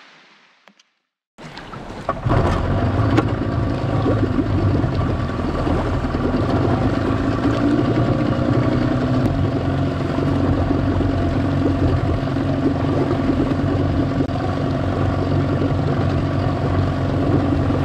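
Yamaha outboard motor running steadily, a low even hum with a slight rise in pitch partway through. It starts abruptly after a second and a half of silence.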